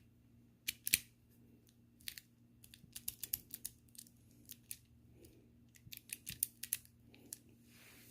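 Small sharp clicks and taps from a TSA combination luggage lock being handled, coming in irregular clusters.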